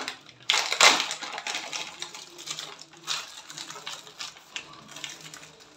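Plastic packet of smoked beef sausages crinkling and rustling as it is opened, loudest about half a second to a second in, with scattered crackles after.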